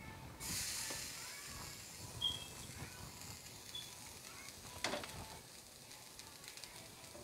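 Faint sizzling from a hot pan of minced-meat keema as foil-wrapped stuffed bell peppers are lifted out with a spatula. The hiss starts suddenly about half a second in and slowly fades, and the spatula clinks once on the pan about five seconds in.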